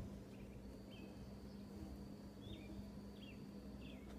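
A small bird calling repeatedly: several short, sharp chirps that drop in pitch, over a faint steady high-pitched whine and a low steady hum.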